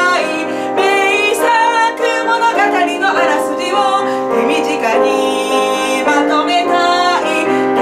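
A woman singing a melody with long held notes and vibrato while playing chords on an electronic keyboard.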